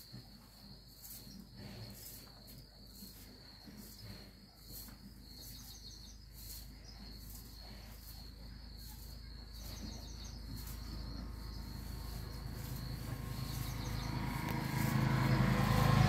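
Steady high-pitched insect trill, faintly pulsing. A low rumble grows steadily louder over the last few seconds.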